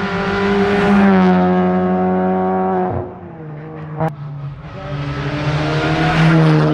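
Rally car engine at full throttle, passing close by, then lifting off sharply about three seconds in. A single sharp bang follows a second later, and the engine builds up hard again toward the end.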